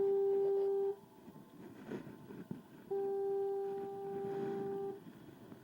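Two long, steady horn blasts at one low pitch, each about two seconds long: the first is already sounding and stops about a second in, the second runs from about three to five seconds in.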